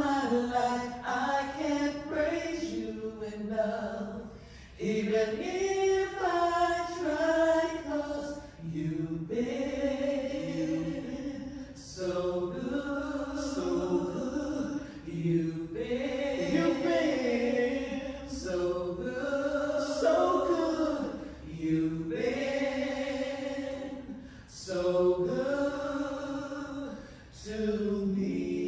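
Small gospel praise team singing a slow worship song in held, sliding phrases with several voices together, apparently unaccompanied.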